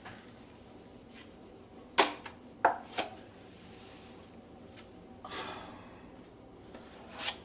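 Metal drywall taping knife clacking and scraping as joint compound is spread and worked: three sharp clicks about two to three seconds in, a short scrape about five seconds in, and another click near the end.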